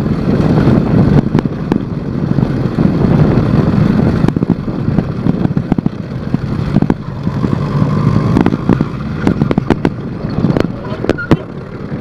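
Motorized bicycle's small engine running under way on a dirt trail, its note swelling and dipping with the throttle. Scattered knocks and rattles from riding over rough ground, heard through a handlebar-mounted phone, come thickest near the end.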